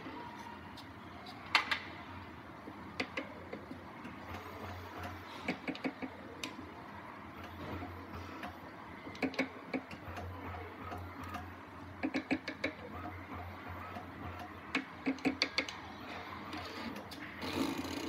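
Tire-changing machine mounting a 1997 Acura NSX front tire onto its alloy wheel with a tire bar: sharp metal clicks and clanks, several in quick runs of four or five, over a low hum that comes and goes.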